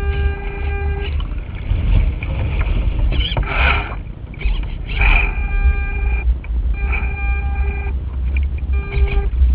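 Gusty wind buffeting the microphone of a camera mounted on a radio-controlled sailing yacht, as a heavy, uneven low rumble. Over it, a steady pitched whine sounds four times: about a second at the start, then twice more after the middle, and a short one near the end.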